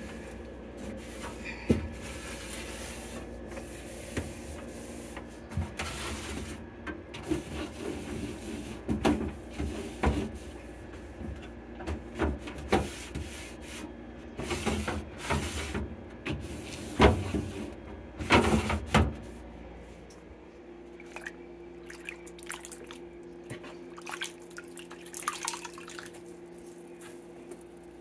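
Tap water running and splashing in a stainless steel sink while plastic refrigerator bins are rinsed and wiped with a cloth, with sharp knocks and clatters of plastic. The water stops about two-thirds of the way through, leaving a steady low hum.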